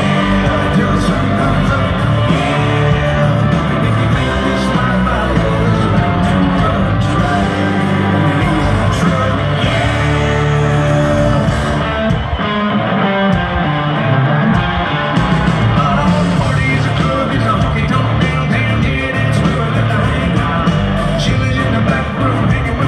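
Live country-rock band playing loud, with electric guitar and a man singing lead through the PA, heard from within the concert crowd.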